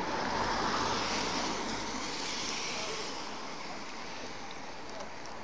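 Street traffic noise: a passing car's tyre hiss, swelling in the first second and easing off after about three seconds.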